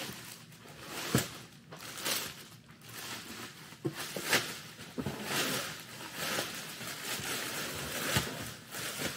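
Clear plastic wrapping rustling and crinkling as it is pulled off a metal beach cart frame, with a few sharp knocks of the frame and packing along the way.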